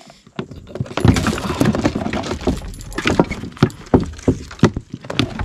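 Rapid, irregular knocking and clattering, starting about a second in: a freshly caught giant freshwater prawn being handled and knocking against a hard surface.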